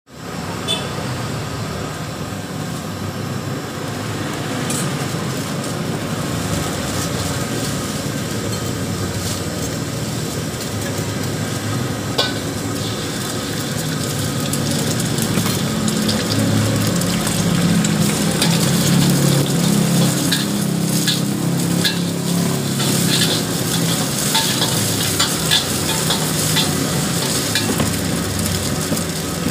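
Steel wok on the fire with a steady rushing noise. About halfway through, beaten egg poured into the hot wok sizzles and grows louder, and a metal spatula scrapes and clicks against the wok as the egg is scrambled.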